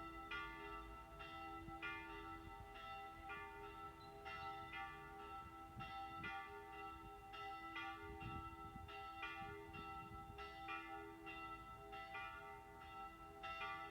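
Church bells ringing faintly, with a fresh stroke a little under twice a second, each left ringing into the next.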